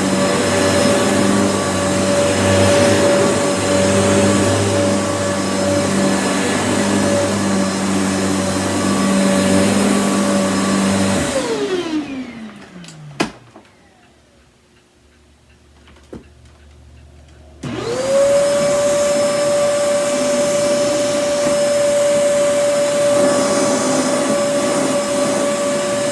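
Kenmore upright vacuum cleaner's motor running with a steady whine, switched off about eleven seconds in and winding down. After two clicks it is switched back on, spins up quickly and runs steadily again, then is switched off and winds down at the very end. It runs fine.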